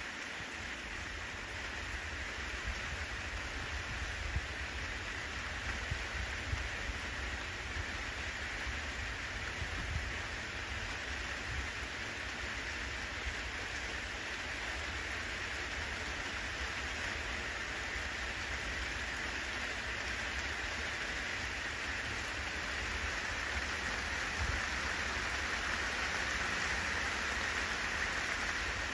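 Steady rain falling, an even hiss that grows a little louder toward the end, with a low flickering rumble underneath.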